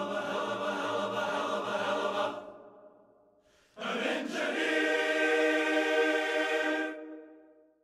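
Background music: a choir singing long held chords. The first chord fades out about two and a half seconds in; after a brief gap, a second chord starts sharply near four seconds and fades away near the end.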